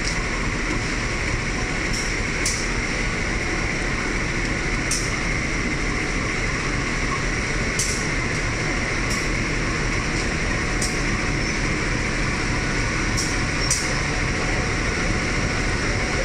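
Diesel locomotive at a passenger train's head, its engine running steadily with a continuous rumble. A few short, faint high clicks come and go every couple of seconds.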